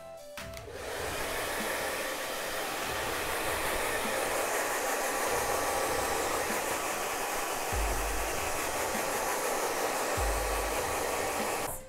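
Handheld hair dryer blowing steadily as it dries long hair, switched on about half a second in and off just before the end. Two brief low rumbles come late on.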